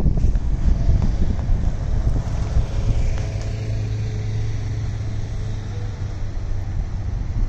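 Car's engine and tyre rumble heard from inside the cabin while driving slowly in traffic, with a steady low hum through the middle.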